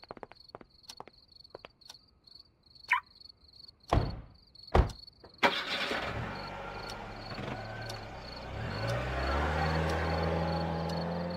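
Crickets chirping in a steady, even rhythm, with scattered faint clicks and two short loud knocks about four and five seconds in. From about halfway a car drives past, its engine and tyre noise swelling to a peak near the end and then easing.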